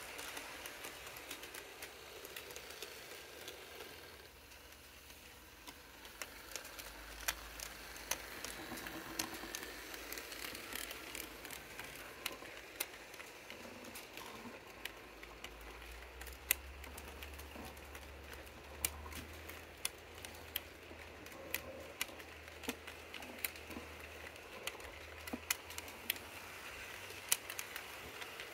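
HO scale model train cars rolling along the track, their wheels clicking sharply and irregularly over the rail joints, with a light rattle. A low hum comes in about seven seconds in and grows stronger from about the middle.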